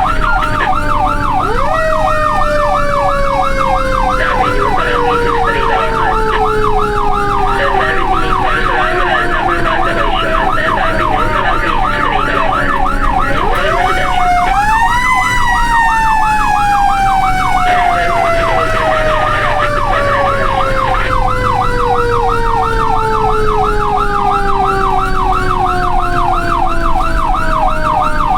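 Fire truck sirens sounding together: a fast warbling yelp at about three to four sweeps a second, over a second siren whose wail slowly falls in pitch, winds back up sharply about halfway through, then falls slowly again.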